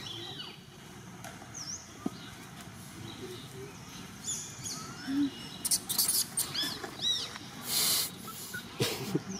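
Baby monkey squeaking: short high calls that arch up and fall away, coming thick in the second half, with a few short bursts of rustling noise.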